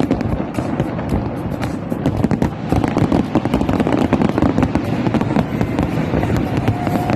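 Fireworks going off in a dense, continuous run of bangs and crackles.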